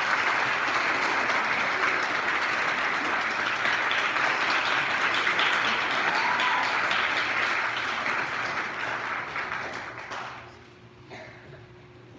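Audience applauding, a dense steady clapping that dies away about ten seconds in. It leaves a quiet room with a faint steady hum and a few small clicks.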